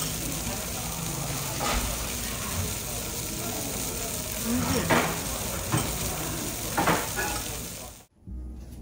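Steady sizzling of food cooking at the restaurant table, with a few clinks of metal chopsticks and a spoon against a ceramic bowl. The sizzling cuts off suddenly just before the end.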